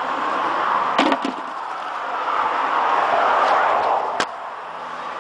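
Sharp clicks and knocks of hard objects: two close together about a second in and a single sharp one about four seconds in, over a steady rushing noise that swells and fades.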